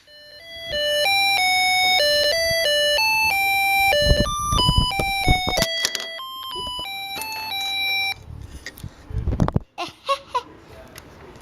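An electronic kit's music chip plays a beeping melody of steady electronic notes, about three a second, set off by sound or vibration, and it cuts off abruptly near the end. Dull knocks come in the middle and after the tune.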